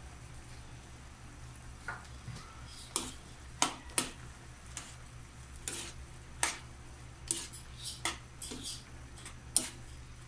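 Metal spoon-spatula stirring chicken gizzards in a thick tomato and oyster sauce in a non-stick wok, with irregular clinks and scrapes against the pan starting about two seconds in. The sauce sizzles faintly underneath, over a steady low hum.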